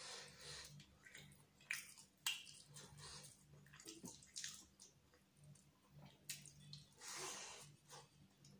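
Close-miked wet chewing and mouth smacking of a person eating chicken biryani by hand, heard as short, irregular smacks and clicks, with a longer wet smack about seven seconds in.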